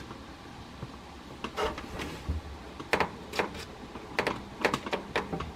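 A scattering of light clicks and knocks, starting about a second and a half in, over a faint steady background noise: the plastic drawer and fittings of a refrigerator being handled.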